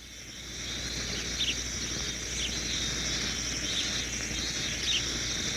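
Forest insects droning steadily at a high pitch, fading in over the first second, with a short chirp about once a second over the drone.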